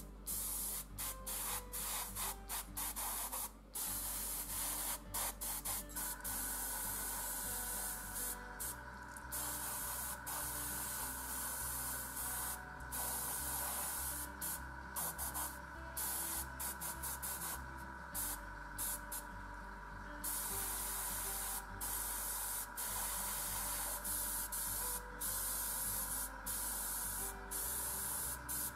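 Gravity-feed airbrush spraying paint: a hiss that starts and stops many times as the trigger is pressed and released, some bursts brief and others several seconds long.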